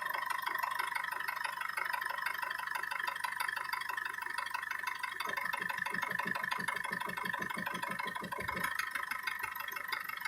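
BMW M47TU four-cylinder turbodiesel engine running with a steady, rapid rhythmic knock, the knocking that the owner is recording. About halfway through, a deeper pulsing joins for roughly three seconds.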